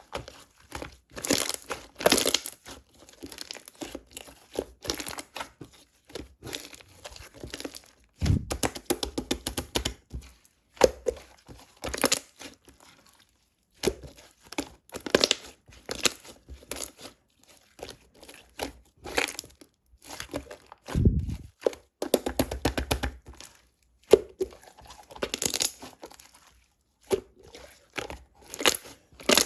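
Close-up crinkling and tearing of plastic or tape being handled, in short irregular bursts, with a couple of low thuds.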